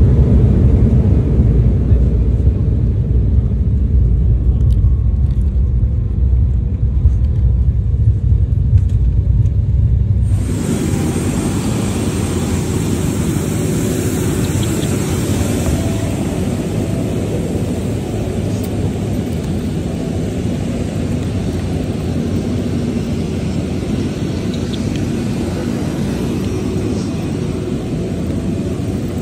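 Airliner noise: a heavy low rumble heard from inside the cabin, which changes abruptly about ten seconds in to the steady outdoor roar of aircraft engines with a thin high whine.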